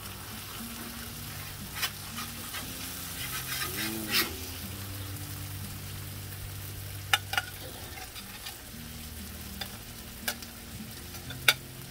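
Food sizzling on a Blackstone flat-top griddle, with a metal spatula scraping and clicking against the steel cooktop several times as the smothered bratwurst is scooped up.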